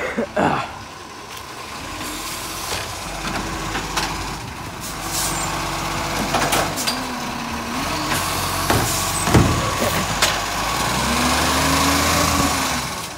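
Diesel engine of a side-loading garbage truck running as the truck moves slowly close by, with several sharp clicks and hisses along the way and the engine revving up and back down near the end.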